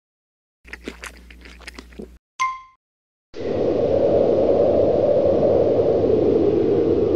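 Cartoon chewing and crunching sound effect of a bear biting into a cake, lasting about a second and a half, followed by a brief high squeak. From about three seconds in comes a loud, steady whooshing noise.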